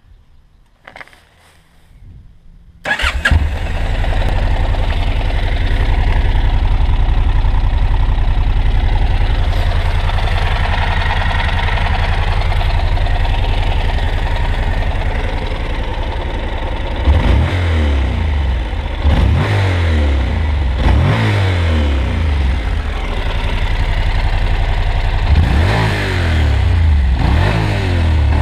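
Honda NC700X's 670 cc parallel-twin engine through its stock exhaust, started about three seconds in and then idling steadily. From about halfway on it is revved in a series of short throttle blips, the pitch rising and falling each time.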